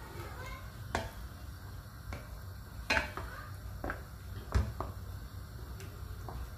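Wooden spoon stirring a thick pork blood stew (dinuguan) in a stainless steel pan, knocking against the pan's side and base at irregular intervals, loudest about halfway through. This is the steady stirring that keeps the blood thickening without clumping.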